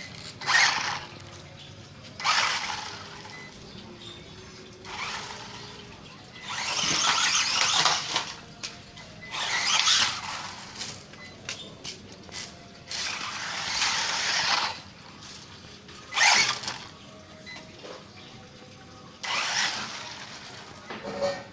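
Electric WLtoys RC car driven in repeated short runs: its motor and gears whine and its tyres hiss in about a dozen bursts, each lasting from half a second to two seconds, with quieter gaps between.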